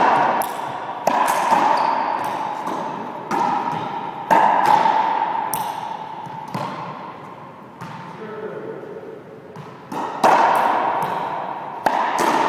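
Racquetball rally: the hollow rubber ball smacking off racquet strings, walls and floor, sharp hits every second or two, each ringing on with a long echo in the enclosed court.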